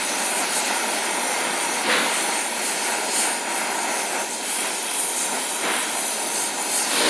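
Oxy-acetylene torch burning steadily with an even hiss, its flame held on a copper-to-steel pipe joint that is being heated for silver brazing.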